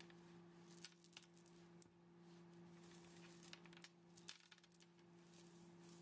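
Small wooden buttons of mountain cherry and walnut clicking against one another as they are handled, with the cloth of a drawstring pouch rustling between the clicks. A faint steady hum sits underneath.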